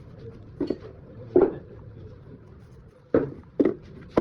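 A handful of sharp, short knocks and clacks of hard objects, about five, irregularly spaced: two close together about half a second in, one just under a second and a half in, and two more near the end.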